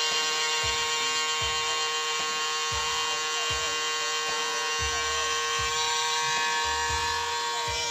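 A compressor nebulizer's small electric pump running with a steady buzz.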